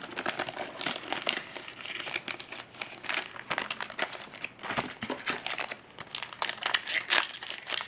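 Foil-plastic wrapper of a hockey card pack crinkling and crackling as it is handled, in dense, irregular bursts.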